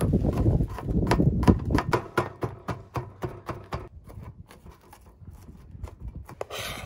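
Kitchen knife chopping garlic and anchovy on a thin plastic cutting board: rapid, uneven taps of the blade on the board, several a second, heaviest in the first couple of seconds.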